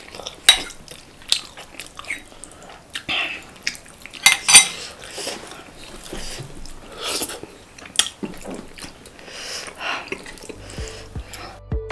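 Eating sounds of a chicken curry meal: scattered clinks and scrapes of a plate and utensils, with chewing and smacking. Music comes in near the end.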